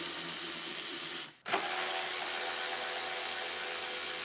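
Cordless electric ratchet running, spinning out the 10 mm bolts that hold the wiper transmission to the cowl. It runs steadily, stops briefly about a second and a half in, then starts again and runs on.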